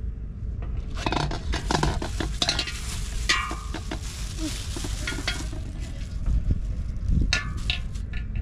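Thin plastic bag crinkling as it is handled, in a dense spell of several seconds, with a shorter crinkle again near the end.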